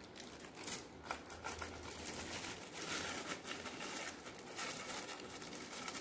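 Clear plastic wrapping crinkling and rustling with many small irregular crackles as a long plastic-wrapped pipe is handled.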